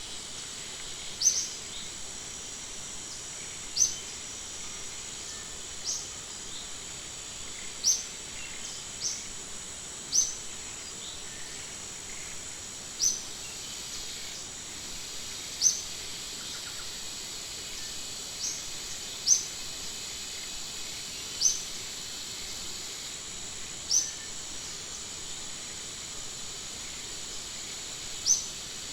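Outdoor natural ambience: a steady, high-pitched insect-like hiss, with a short, sharp, high chirp repeated about a dozen times at irregular gaps of two to three seconds.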